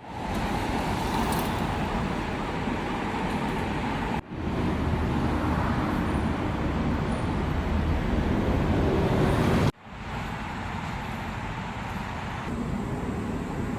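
Steady road traffic noise from a highway, a dense rumble of passing vehicles, breaking off sharply about four and about nine and a half seconds in before carrying on.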